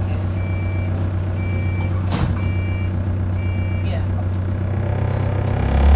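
Electronic vehicle warning beeper sounding four steady single-pitched beeps about a second apart, then stopping. Under it runs the low steady hum of the bus's engine, which grows louder near the end.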